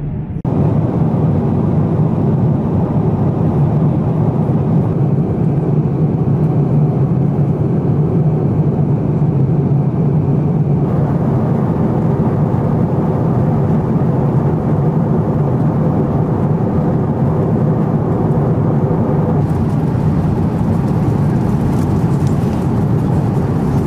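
Airbus A350 passenger cabin noise in cruise flight: a steady, loud rumble and rush of engines and airflow.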